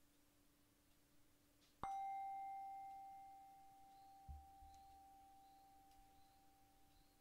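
A meditation bell struck once about two seconds in, ringing one clear tone that slowly fades away. There is a short low thud about four seconds in. The bell marks the close of the guided meditation.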